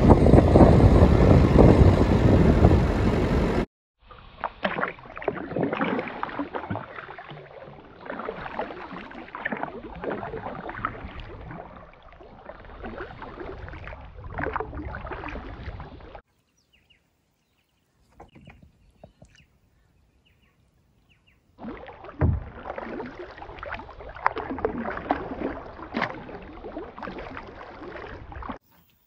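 Loud wind and vehicle noise while riding along a sandy track, cutting off suddenly a few seconds in. Then a paddle working a canoe through water: strokes splashing and dripping, with a quiet pause midway before the strokes resume.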